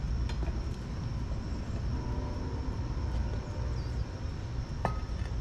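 Propane melting furnace burner running with a steady low rumble. Nearly five seconds in, steel tongs give one sharp metallic clink against the crucible as it is set down.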